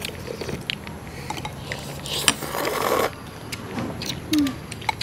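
Eating noodle soup: light clicks of spoons and chopsticks against ceramic bowls, with a slurp of noodles about two seconds in. A short low hum-like sound about four seconds in is the loudest moment.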